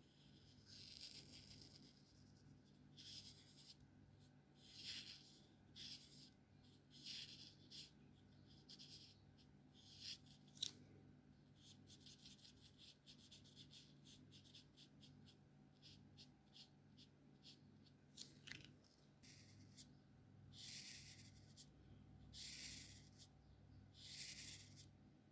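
Alcohol marker nib stroking across paper while colouring: a series of faint scratchy strokes, some long and sweeping, with a run of quick short strokes in the middle and a single sharp tick about ten seconds in.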